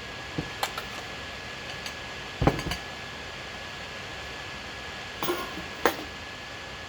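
Scattered short knocks and clinks of dishes and a glass being handled, the loudest about two and a half seconds in, with a few more about five to six seconds in. Under them runs a steady hiss with a faint high-pitched whine.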